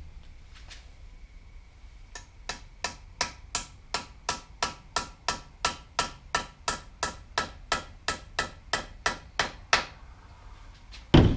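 A small ball-peen hammer tapping a metal spacer into a sway bar's rubber end bushing: about two dozen light, even taps, roughly three a second, each with a short metallic ring, starting about two seconds in. A single louder thump comes at the very end.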